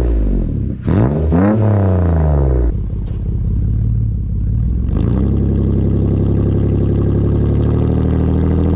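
Straight-piped 2014 Toyota Sienna engine, running with no catalytic converters, revved in a few quick blips whose pitch rises and falls back in the first three seconds, then settling into a steady idle.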